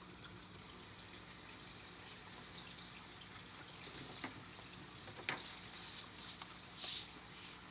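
Faint steady trickle and hum, likely from an aquarium filter, with a couple of soft knocks from handling a hardback picture book and a brief page rustle near the end as a page is turned.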